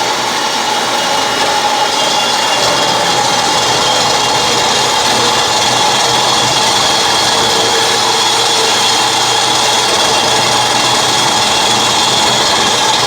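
Metal-cutting bandsaw running steadily as its blade cuts through 2x2-inch, 1/8-inch-wall steel square tubing.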